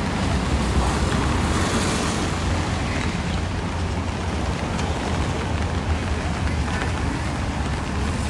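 Steady street traffic noise: a continuous low rumble of vehicles under an even hiss, with no single event standing out.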